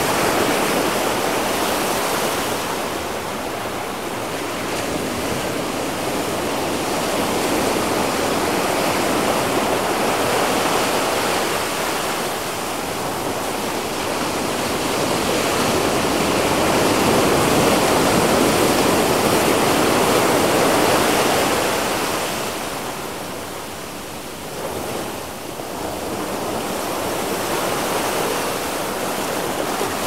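Small surf waves breaking and washing up a sandy beach in a continuous rush that swells and eases. It is loudest about two-thirds of the way through, then dips briefly before building again.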